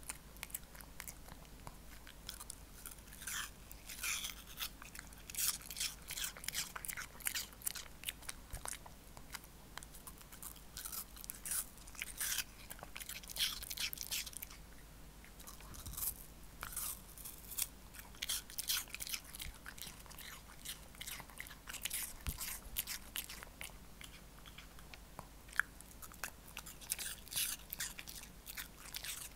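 Shih Tzu crunching and chewing pieces of raw apple: quick runs of crisp, wet crunches in clusters, with a couple of short pauses between mouthfuls.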